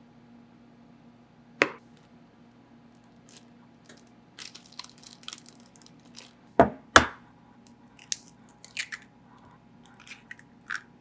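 Kitchen handling sounds: scattered light clicks and taps, with three sharp knocks, the loudest two close together past the middle, over a steady low electrical hum.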